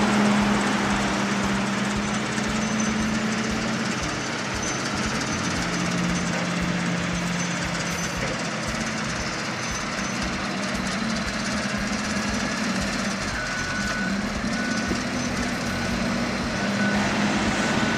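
Diesel engines of heavy earthmoving equipment, an excavator and a wheel loader, running steadily under load while digging and moving soil, with an engine drone that drifts up and down in pitch.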